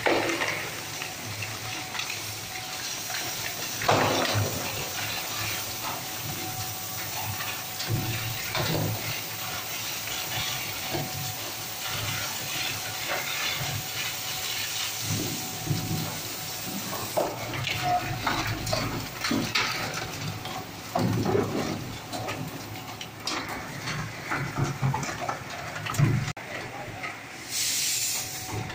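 20 HP multipurpose shredder running and chewing up pieces of polyethylene drums, a steady noisy churn broken by irregular cracks and crunches as the plastic is torn apart.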